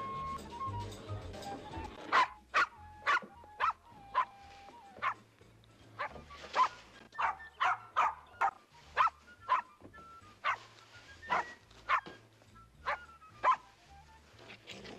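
Small dog barking repeatedly in short, sharp yaps, about one to two a second, starting about two seconds in.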